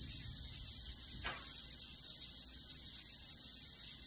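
Steady hissing noise, with one brief click about a second in.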